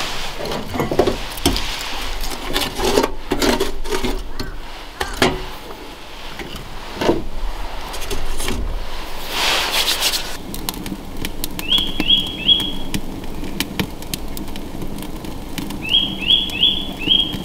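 Knocks and rustles of handling a small wood-burning stove and a camp chair on a wooden deck, then a whoosh about halfway through as the stove is lit, followed by the stove's steady low burning noise. A bird chirps in short rising notes, three and then four, in the second half.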